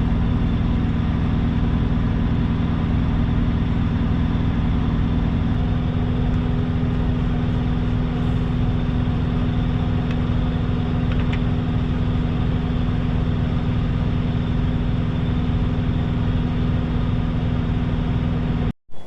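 Semi truck's diesel engine running steadily with an even hum; it cuts off abruptly near the end.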